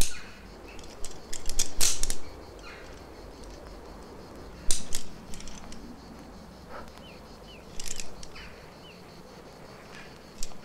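A rock climber's hands and gear on the cliff: scattered sharp clicks, metallic jingles and scrapes of carabiners, rope and holds, the loudest near the start and about two seconds in. A few short chirps, likely from a bird, come about two thirds through.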